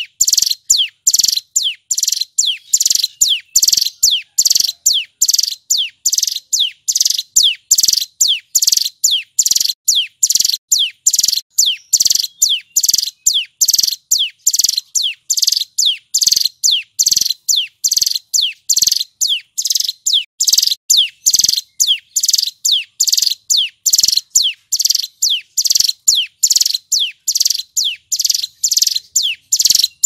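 Male hill prinia (ciblek gunung) singing a steady, unbroken series of high notes, each sliding down in pitch, about two a second.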